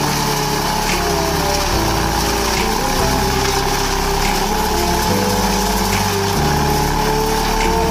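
Leaf vacuum's engine and fan running steadily, pulling dry leaves up a wide flexible hose, heard under background music.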